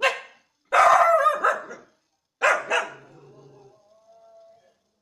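A dog barking: one sharp bark, then a longer wavering bark about a second in, two quick barks near the middle, and a faint thin whine trailing off after them.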